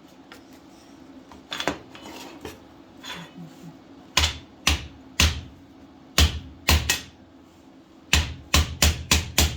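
Piece of metal being struck hard with a hand tool to beat it down: about a dozen sharp blows in irregular groups, coming quicker near the end.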